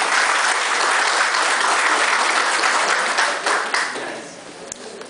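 Audience applauding, a sustained clapping that dies away about four seconds in.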